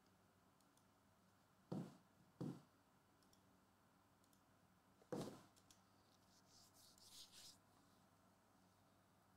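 Near silence broken by faint soft knocks, two close together and a third a few seconds later, then a brief faint rustle near the end.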